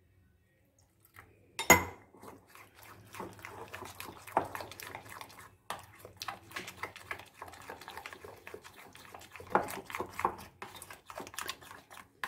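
Steel spoon beating thick gram-flour batter in a glass bowl: rapid clacking and scraping of spoon against bowl, with one sharp tap a little under two seconds in.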